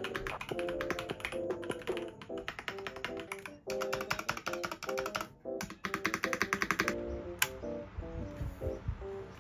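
Fast typing on a Marvo Pro mechanical keyboard: a rapid run of clacking keystrokes with a couple of brief pauses, stopping about seven seconds in. Background music plays underneath.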